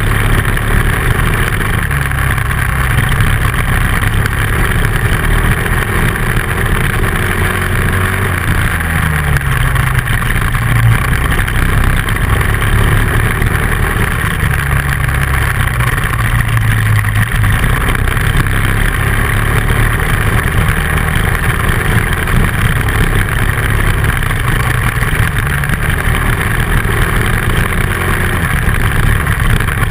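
Dual-sport motorcycle engine running under way on a gravel road, under a steady rushing noise; the engine note rises and falls a couple of times with the throttle.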